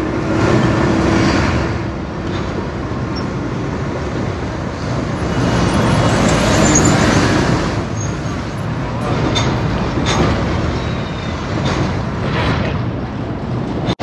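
City street traffic: a steady rush of passing motor vehicles that swells and fades as they go by, with a few short knocks or clicks in the second half.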